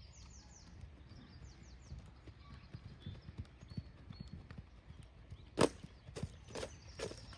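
A horse's hooves beating in a steady jog on soft arena sand. Four sharp knocks come in quick succession about five and a half seconds in.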